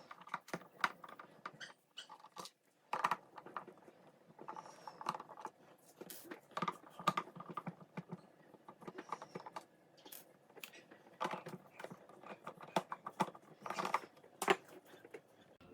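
Irregular small clicks, taps and scrapes of hand tools and fingers on a coffee maker's plastic underside as its rubber feet are pried off and its screws are unscrewed.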